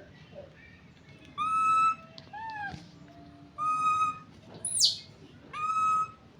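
Baby monkey calling: three loud, drawn-out squealing calls about two seconds apart, with a shorter falling call and a brief high squeal between them.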